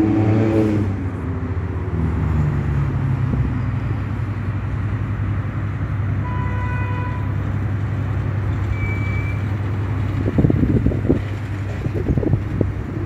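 Road traffic passing on a street beside the railway: a steady rumble, with a vehicle's engine dropping in pitch as it goes by at the start. A horn sounds once for about a second midway, and wind buffets the microphone near the end.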